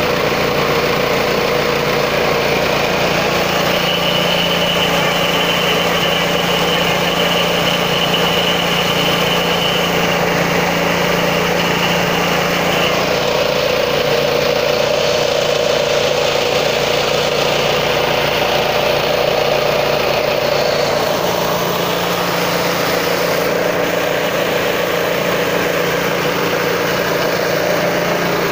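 Corn grinding mill running steadily, grinding dried corn kernels into grits with a continuous machine hum. A thin high whine rides over it for several seconds, and the tone shifts slightly about halfway through.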